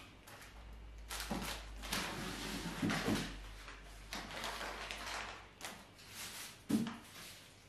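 Crinkling plastic wrapping and soft knocks as groceries and wrapped flower bouquets are handled and set down on a wooden table, with a sharper knock near the end.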